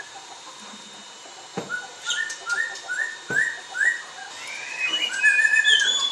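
Pet songbird singing a series of short, clear rising whistled notes, about three a second, then a few longer, louder held notes near the end; two sharp taps sound in between.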